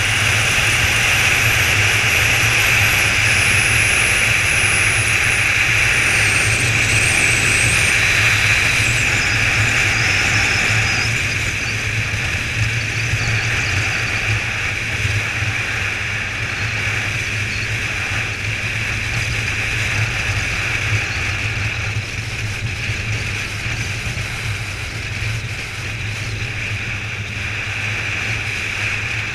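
Kawasaki ZZR1400's inline-four engine running steadily at road speed, mixed with a constant rush of riding wind. It gets a little quieter about eleven seconds in.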